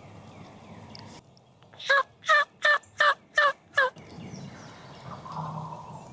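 A series of six turkey yelps, evenly spaced at about two and a half a second, each note dipping in pitch at its end.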